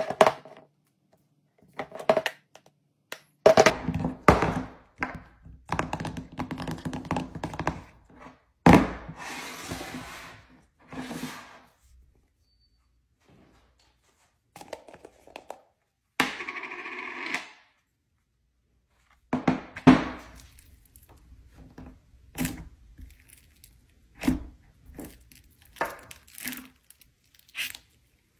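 Plastic slime tubs being handled and knocked together, a lid worked off, then fingers pressing and poking into thick slime. It comes as a string of separate knocks and clicks, with a few short stretches of rustling noise.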